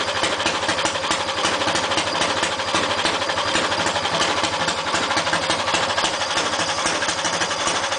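Briggs & Stratton Animal single-cylinder four-stroke kart engine running steadily at an even speed, with no revving, during break-in of a new motor.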